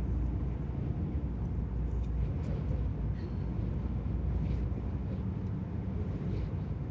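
A car travelling at highway speed, heard from inside the cabin: a steady low rumble of road and wind noise. A few faint short sounds are laid over it.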